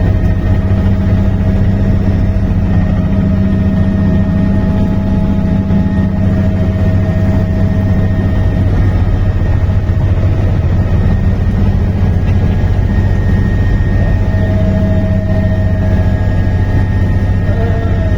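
Helicopter in flight heard from inside the cabin: a loud, steady drone of rotor and engine, with a faint steady high whine over it.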